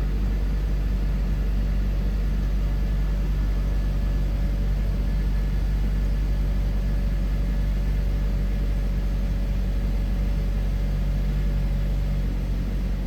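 2010 Honda Accord engine running at a steady fast idle just after starting, its throttle-position learning values cleared for an idle relearn.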